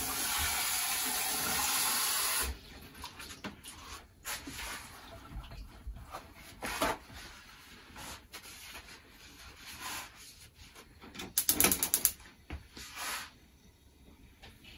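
Handheld gas torch hissing steadily while it heats a knife blade, cut off abruptly after about two and a half seconds. Then faint clicks and knocks, with a quick rattle of clicks near the end.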